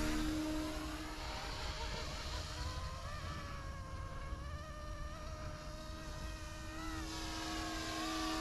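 Whine of a small electric RC helicopter's brushless direct-drive main-rotor motor and tail motor flying some way off. The pitch wavers up and down as it manoeuvres, and it grows louder near the end as it comes closer.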